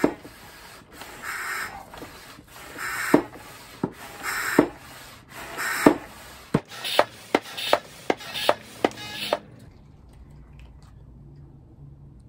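Hand-operated vacuum oil extractor pump being worked: about five plunger strokes, one every second and a half, each with a rubbing hiss, as vacuum builds to draw engine oil up through the dipstick tube. About halfway through comes a quick run of sharp clicks, and then the pumping stops.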